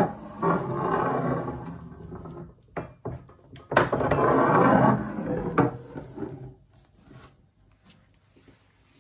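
Homemade proofing press being run: its roller rolls across the bed with a loud rumbling grind in two passes, the first about three seconds long and the second about two. There are a few sharp knocks between and after the passes.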